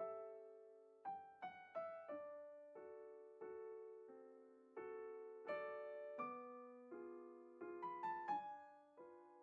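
Quiet background piano music: single notes and chords struck every half second or so, each left to ring out and fade.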